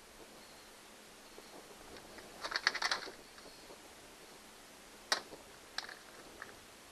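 A quick run of light clicks and rattles about two to three seconds in, then one sharp click about five seconds in and a few fainter ones after it: hand work with small plastic push-type rivets and a tool in a kayak's rod-holder rivet holes.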